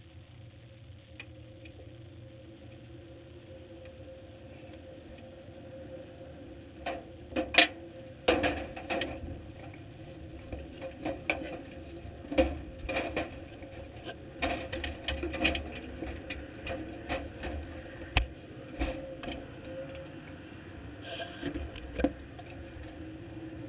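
Irregular sharp clicks and taps on the race car close to the camera, starting about seven seconds in, a few of them loud, over a faint steady hum.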